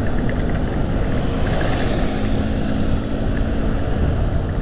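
Riding a motorcycle in city traffic: a steady low rumble of wind and engine on the microphone. An engine hum rises about a second and a half in and fades near the end, with a brief swell of hiss in the middle.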